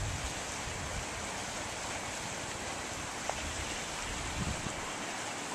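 Steady outdoor rushing noise with irregular low buffets of wind on the microphone.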